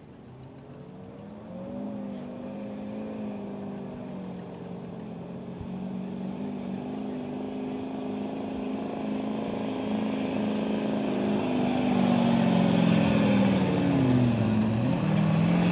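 Chevrolet Silverado dually pickup's engine working under heavy load as it drags a truck-pull weight sled, holding steady high revs and growing louder as it comes closer. Near the end the revs sag briefly, then climb again.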